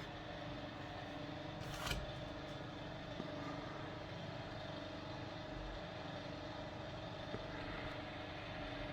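Ceiling fan motor running with a steady hum; the fan has a bad capacitor, so it gives no more than this one weak speed. A short knock about two seconds in.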